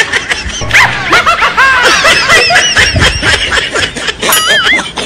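Several voices laughing and giggling at once, high-pitched and overlapping.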